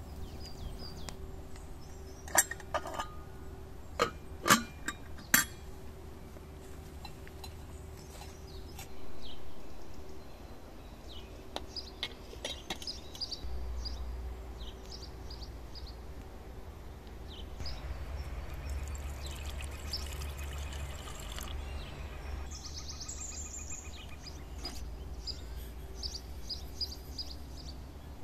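Clinks of metal cookware and a glass bowl being handled: a handful of sharp clinks in the first few seconds, then softer handling sounds, with dry flour poured from a small metal cup into a glass mixing bowl near the end.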